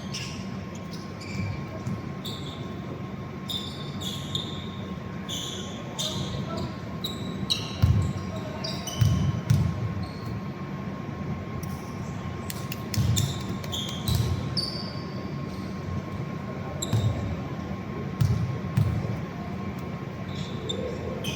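Basketball game play: a ball bouncing on the court in irregular thuds, with short high squeaks of sneakers on the floor.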